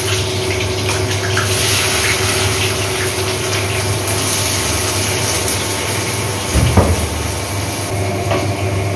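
Food sizzling in hot oil in a kadai on a gas stove, a steady hiss over a low hum, with a single bump about two-thirds of the way through.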